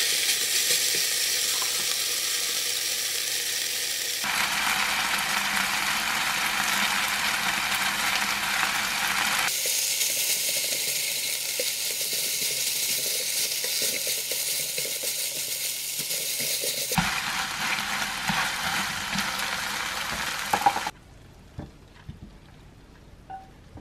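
Food sizzling in a hot frying pan as glass noodles, bok choy and shrimp are stir-fried in sauce, stirred with chopsticks. About 21 seconds in the sizzling stops and a few light clicks follow.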